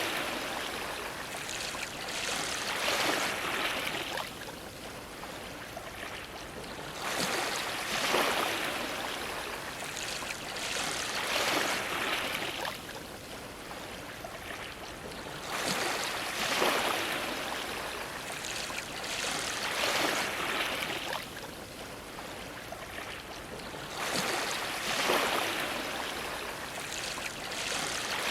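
Ocean waves washing and splashing against a dock. A new surge comes about every eight seconds, each with two or three splashes before it settles back to a steady wash.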